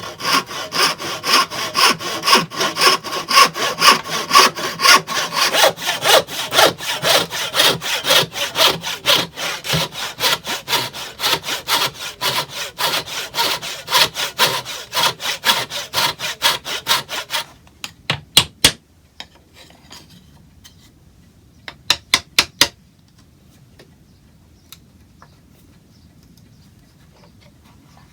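Hand saw cutting through the old oak chair rail in quick, even back-and-forth strokes, stopping a little over halfway through. A few sharp taps follow in two quick groups.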